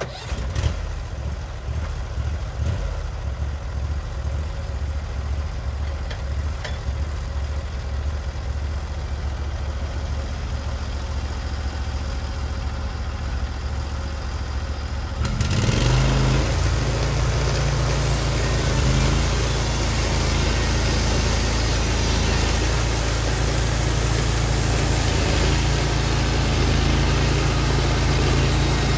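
Engine of a Norwood HD36v2 portable band sawmill running steadily, then about halfway through it throttles up, getting louder and fuller as the mill is brought up to speed to saw a pitch pine log.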